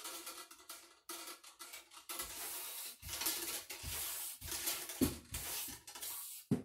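A bore brush on a long cleaning rod scrubbing up and down inside a black powder rifle barrel being flushed with water: a run of rasping strokes, with a few dull knocks along the way.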